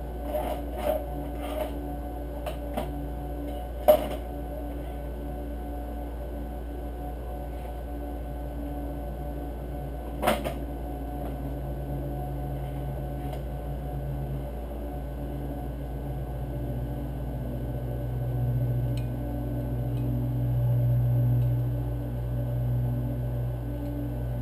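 Small clicks and clinks of hand tools and metal parts being handled at a motorcycle engine, with two sharper clicks about four and ten seconds in, over a steady low hum that swells near the end.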